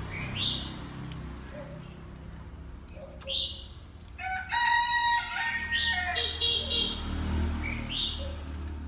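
A caged Oriental magpie-robin calling: short upward-sweeping chirps about a second in, at three seconds and near the end. Around the middle comes a louder, two-second run of several held, whistled notes.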